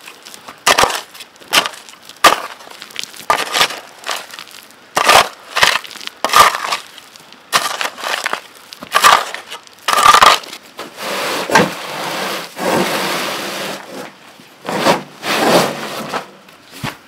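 Steel shovel blade driven into loose garden soil again and again, each stroke a short scraping crunch through dirt and small stones, about one a second. Later comes a steady rush of about two seconds as a load of sand slides out of a tipped wheelbarrow, followed by a few more knocks.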